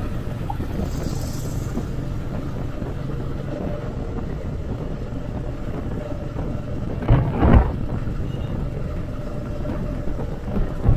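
Royal Enfield Meteor 350 motorcycle riding at steady speed, its engine and the rush of wind and road making a continuous low rumble. About seven seconds in, two brief loud thumps come close together.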